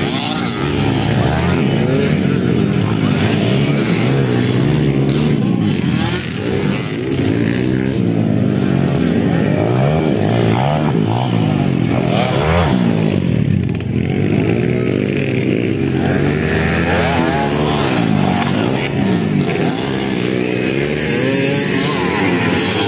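Several motocross dirt bikes running hard around a dirt track, their engines revving up and dropping back again and again as the riders accelerate over the jumps, the overlapping engine notes rising and falling.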